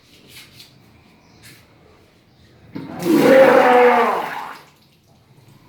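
A person retching and vomiting, a strained voice falling in pitch over a gush of liquid, once, lasting under two seconds about three seconds in. It is therapeutic vomiting that brings up the drunk fluid and phlegm.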